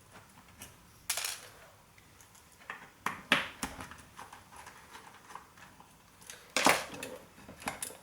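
Metal clinks and knocks from handling an old hard drive and its parts while taking off its controller board: a few sharp clatters, the loudest about two-thirds of the way in, with light ticks between.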